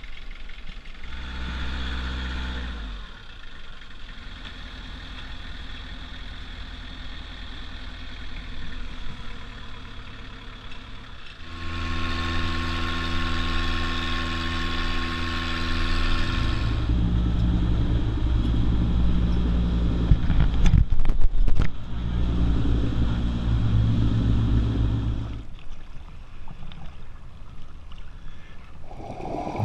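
Longtail boat engine running under way, its note and loudness changing from cut to cut, loudest in the middle with a low, heavy run. A few sharp, loud crackles come about two-thirds of the way through.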